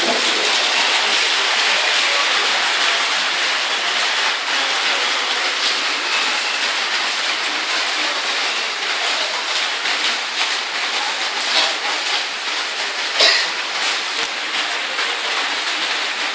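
Heavy rain and rooftop rainwater running through the drain pipes, a steady dense hiss, with a few light knocks in the second half.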